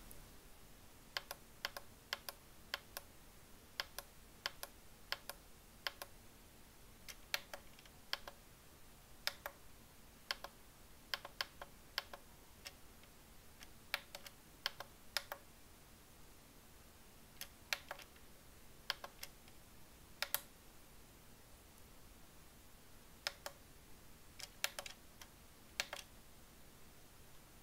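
Plastic navigation buttons on a Jumper T8SG V2 Plus radio transmitter clicking under the thumbs as its menus are paged through. The clicks come irregularly, some in quick pairs, with short pauses between runs.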